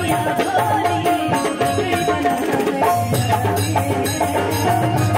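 Live Bhojpuri stage-show band music: a melody line over hand-drum percussion in a steady rhythm, with a low sustained note joining about three seconds in.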